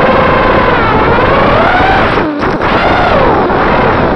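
Racing quadcopter's four EMAX RS2205 brushless motors and propellers whining, the pitch rising and falling as the throttle changes. A little past halfway the throttle is cut for a moment and the whine drops away, then it powers back up.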